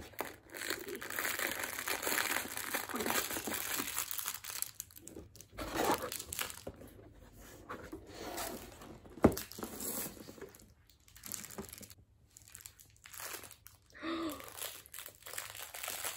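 Cardboard and a clear plastic bag rustling and crinkling as a small vinyl figure is pulled out of an advent-calendar compartment and handled, with one sharp snap about nine seconds in.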